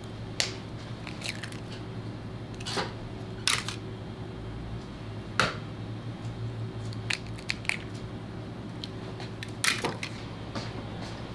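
Eggshells cracking as eggs are broken by hand one after another, sharp cracks about eight times at uneven intervals, over a steady low hum.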